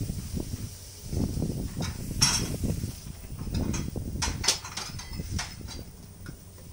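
Steel tongs and a tandoor-heated clay cup clinking against a steel bowl of chai, several sharp clinks over a low, uneven spluttering as the tea steams against the hot clay.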